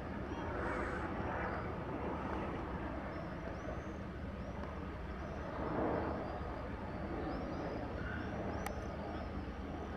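Eurocopter EC135 air-ambulance helicopter flying past at a distance: a steady rotor and turbine drone, with faint high chirps above it.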